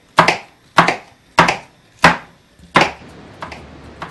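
Kitchen knife chopping green chili peppers on a wooden cutting board: five firm chops about every two-thirds of a second, which stop about three seconds in.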